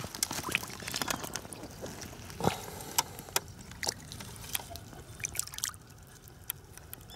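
Water splashing and dripping in a string of small, sharp splashes as a common carp is slid out of a wet retaining sling back into the water. The splashes thin out about six seconds in.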